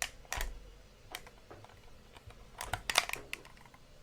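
Small plastic buttons on handheld devices being pressed, several separate clicks at uneven intervals with a quick cluster of clicks about three seconds in.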